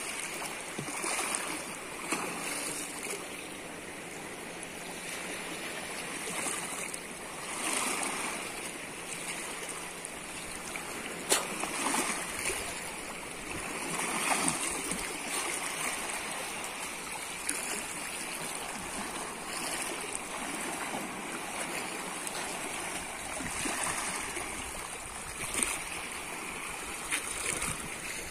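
Small waves lapping and water splashing around a man wading with a cast net, in uneven swells every second or two. One sharp click about a third of the way in.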